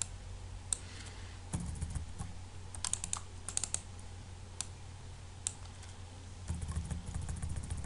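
Scattered clicks of a computer mouse and keyboard, single ones and short quick runs, busiest near the end, over a low steady hum.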